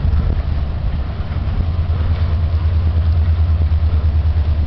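Low, steady engine rumble of a freighter passing on the river, a deep drone with a slight regular pulse.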